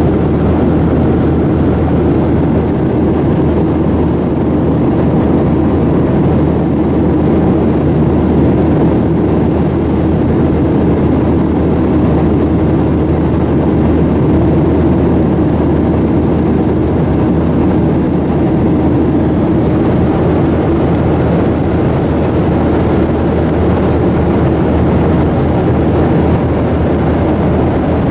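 Steady cabin noise inside a Boeing 737-800 airliner in flight: a loud, even, low drone from its CFM56-7 turbofan engines mixed with the rush of airflow.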